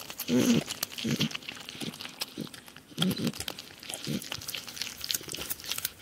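A porcupine mumbling to itself while eating: several short, low grunting mumbles, with a steady run of small crunching clicks as it chews seeds and nuts.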